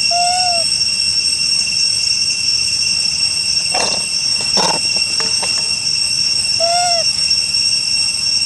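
Steady, high-pitched insect chorus droning through the whole stretch as several unbroken tones. A short rising-then-falling call sounds twice, near the start and about seven seconds in, and a couple of brief rustling knocks come around four seconds in.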